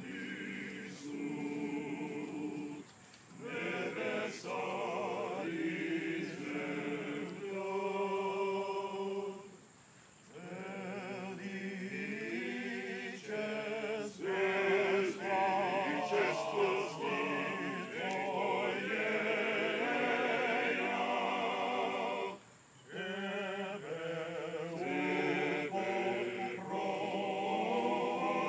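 Serbian men's choir singing a cappella in several parts, in sung phrases broken by three short pauses for breath.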